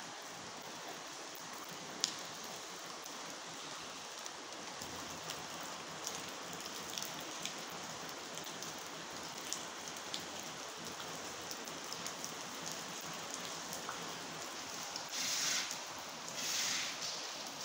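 Steady, rain-like patter of water dripping and trickling onto a flooded concrete floor, with scattered sharp drips. Near the end come three louder splashing swishes.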